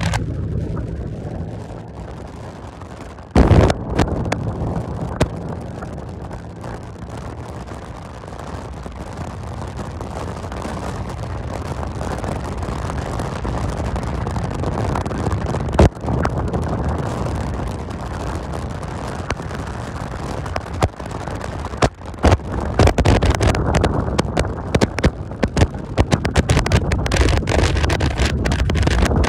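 Motorcycle engine running steadily at cruising speed under a rush of wind on the microphone, the wind buffeting harder over the last several seconds. A few sharp knocks break in, the loudest about three seconds in.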